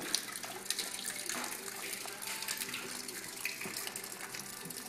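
Liquid trickling and splashing steadily, with scattered light clicks of metal tools.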